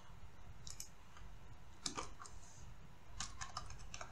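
Scattered clicks of a computer keyboard and mouse during code editing: single keystrokes about a second and two seconds in, then a quick run of several keys a little past three seconds.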